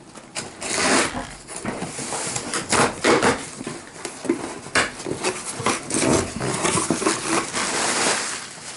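Packaging being handled and opened: irregular rustling, crinkling and tearing of plastic and paper, with scrapes and small knocks.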